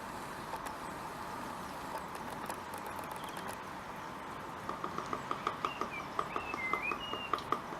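Blue tit tapping its beak on a nest box, a woodpecker-like run of quick sharp knocks, about four a second, starting a little over halfway in. A short whistled bird call sounds over the tapping near the end.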